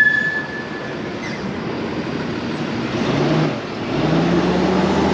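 Car driving through city streets, heard from inside: steady road and engine noise, with the engine swelling twice in the second half. A thin high tone sounds for about the first second.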